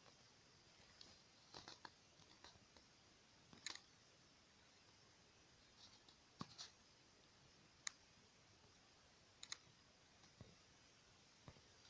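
Near silence broken by faint, scattered small clicks and taps, about eight of them.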